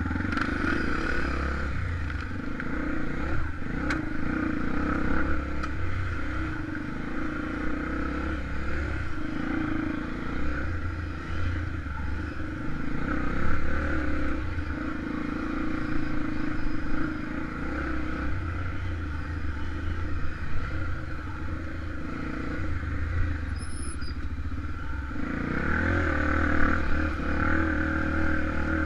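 Honda XR 250 Tornado single-cylinder four-stroke engine running while the bike is ridden, its note rising and easing with the throttle, with some clatter.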